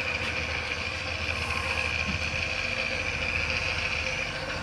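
Wilton gear-head drill press running steadily under power on a test run, geared down toward a low spindle speed, with a steady high whine over a low hum. The motor, once thought burned up, runs normally.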